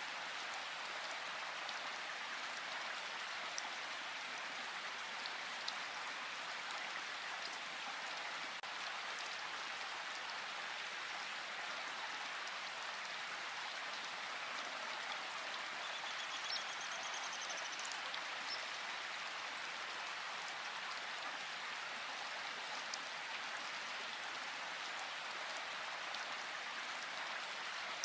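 Steady rushing water of a river or waterfall, an even hiss without a break. A faint, rapid bird trill sounds briefly just past the middle.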